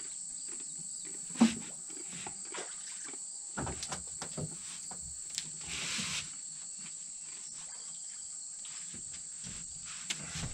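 A steady high-pitched chorus of insects, such as crickets, trilling without a break. Scattered light knocks sound over it, the sharpest about a second and a half in, with a short rustling hiss around six seconds.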